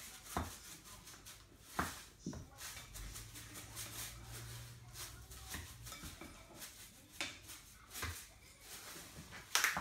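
Spoon stirring raw ground-meat mix in a glass bowl, with scattered clinks and knocks of the spoon against the bowl, the loudest near the end.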